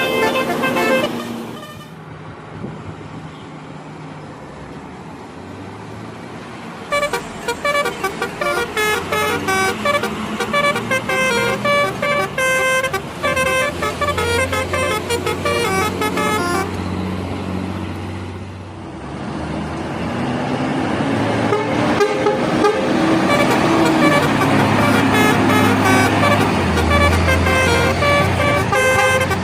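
Telolet horns of Indonesian buses: multi-tone bus horns playing quick, chopped melodies of short notes over the buses' engines. One horn tune stops about two seconds in. Fresh rapid tunes start about seven seconds in, and the horns and engine get louder toward the end.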